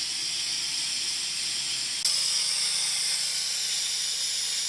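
Pneumatic venturi oil extractor hissing steadily on compressed air as it vacuums engine oil out of the pan; the hiss steps up slightly about two seconds in.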